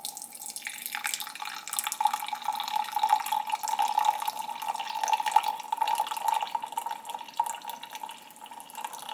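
Freshly brewed espresso poured out of a Bialetti stovetop espresso pot, a steady stream of liquid that thins and tails off near the end.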